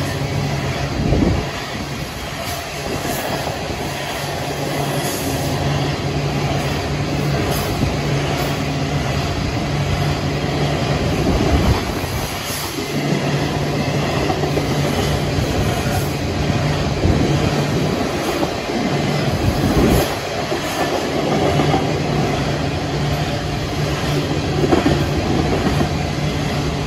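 Loaded coal hopper cars of a freight train rolling past, a steady rumble of steel wheels on the rails.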